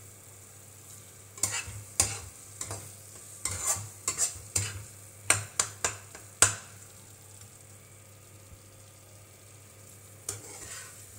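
Metal spatula scraping and knocking against a nonstick pan as thick wheat halwa is stirred: a quick run of sharp scrapes and taps through the first half, then a quieter stretch and a few more scrapes near the end.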